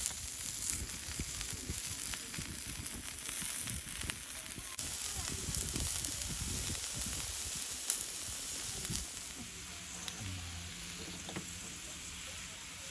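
Meat sizzling on a hot cast-iron Dutch oven lid: a steady hiss with scattered pops, easing slightly near the end.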